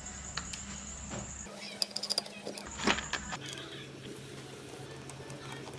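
A few light clicks and taps, a small cluster of them about two seconds in, over a steady low workshop hum. The hum changes abruptly at several edits.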